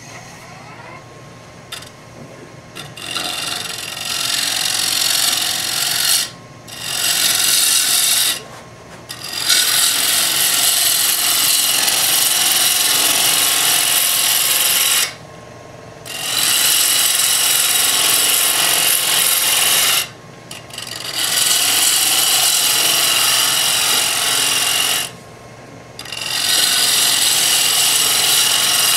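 A turning tool cutting into a wooden workpiece spinning on a lathe: a steady hissing scrape in long passes. It breaks off briefly about five times as the tool comes off the wood and goes back in.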